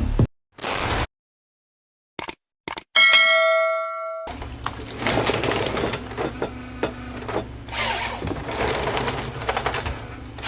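A short whoosh and a few soft clicks, then a bright chime dings once about three seconds in and rings out for about a second. After it, a steady low hum with a shifting noisy wash sets in.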